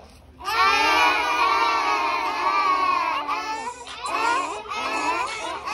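A group of young children singing together. About half a second in they hold one long note for some three seconds, then the singing breaks into shorter phrases.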